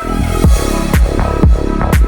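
Electronic dance music with a heavy kick drum about twice a second over a deep bass.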